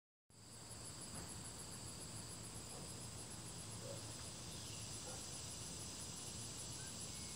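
Steady insect chorus outdoors: several high, even trills, one of them pulsing rapidly, over a faint low hum.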